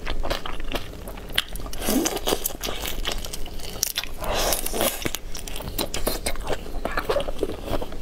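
Close-miked eating of raw shrimp in chili sauce: wet biting and chewing with many small clicks, louder about two seconds in and again about four to five seconds in.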